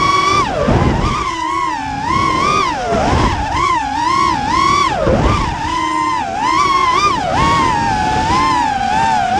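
FPV racing quadcopter's motors whining, heard from the onboard camera during a low, fast flight. The pitch rises and falls constantly with the throttle and drops sharply about every two seconds as the throttle is cut for turns.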